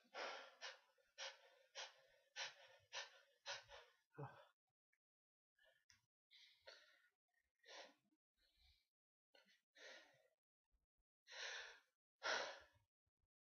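A person's breathing: a quick run of short breaths in the first four seconds, then scattered breaths and two longer, louder sighing breaths near the end.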